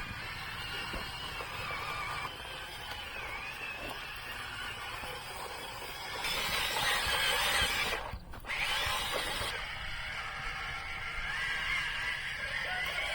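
Small electric motors and plastic gearboxes of a radio-controlled toy excavator whirring with a wavering whine, louder for a couple of seconds around the middle and cutting out for a moment just after.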